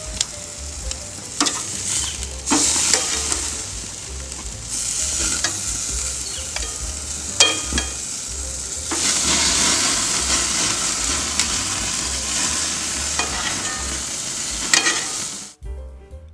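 Steak sizzling in melted butter and rosemary in a hot cast iron skillet, with a few sharp clicks of metal tongs against the pan as it is turned. The sizzle swells louder in the second half, then cuts off near the end, where music begins.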